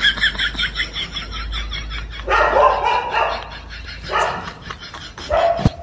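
A dog barking, loudest about two and a half seconds in and again near four seconds.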